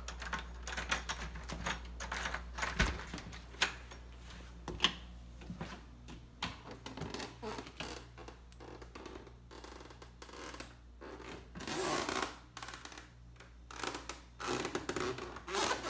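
Irregular light clicks and knocks of footsteps and the handheld phone being moved while walking through a doorway into a garage, over a steady low hum that fades about two-thirds of the way through.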